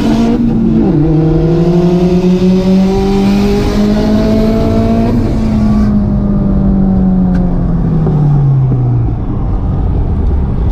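Turbocharged VW Jetta engine heard from inside the cabin, pulling hard with rising pitch and dropping once with a gear change about a second in. A rushing hiss stops about six seconds in, and the engine pitch then falls steadily as the car slows.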